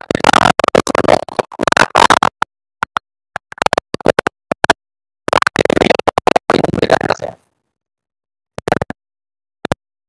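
Broken-up audio of a voice: short, stuttering fragments cut apart by abrupt dropouts to silence, like a glitching recording or an over-aggressive noise gate. The fragments come densely in the first half and only sparsely after about seven seconds.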